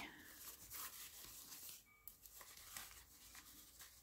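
Faint rustling of paper and a fabric tie being knotted by hand around a folded journal signature, with a few soft brushes and taps.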